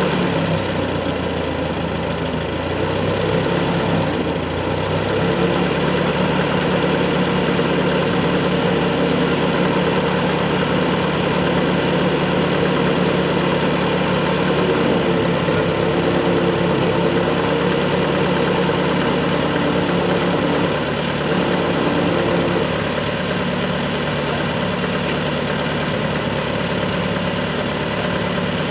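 Massey Ferguson 202's freshly rebuilt Continental Z134 four-cylinder gasoline engine running steadily, its pitch shifting a little during the first few seconds.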